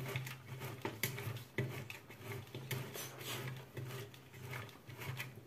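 Hard cheese being rubbed on a fine grater: uneven scraping strokes, roughly two a second.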